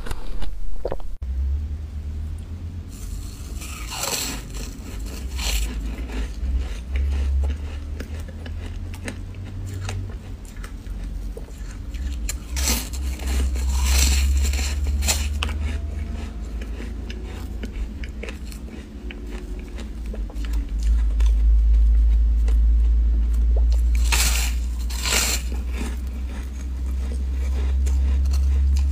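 Bites crunching into a sheet of frozen foam ice, with chewing in between. The loudest crunches come in pairs about a second apart: a few seconds in, midway and near the end. A steady low rumble runs underneath.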